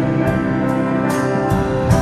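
Acoustic guitars strummed in a slow, steady rhythm with a violin holding notes over them: an instrumental passage of a hymn, with no singing.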